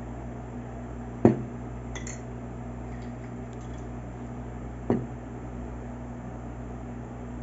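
A spoon knocking twice on a bowl, about a second in and again near five seconds, with a light clink between, as sugar is spooned into the filling. A steady low hum runs underneath.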